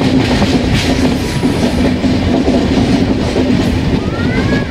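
Passenger train running along the track, heard from on board: a steady rumble of wheels on rail with clickety-clack from the rail joints.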